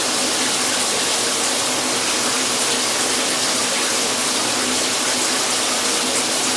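Shower water spraying and running steadily, with an even rushing hiss, while hair colour is rinsed out.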